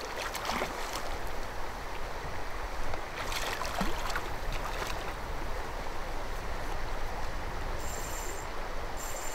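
A hooked brown trout splashing at the surface near the shore: a brief splash about half a second in and a longer bout of splashing about three to five seconds in, over a steady rush of wind and lapping water.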